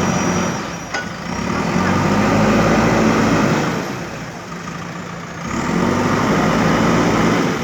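JCB backhoe loader's diesel engine working, its note rising twice under load and easing back in between.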